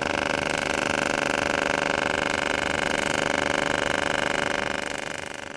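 AC TIG welding arc buzzing steadily as it runs a bead on aluminium, a held buzz of several stacked tones with a fast flutter, fading out near the end.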